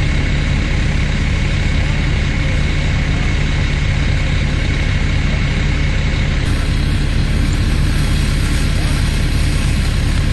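Fire engine's motor running steadily at the scene, a constant low hum with an even rushing noise over it.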